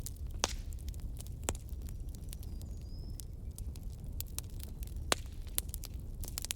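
Wood fire burning: logs crackling with irregular sharp pops, a few louder than the rest, over a low steady rumble.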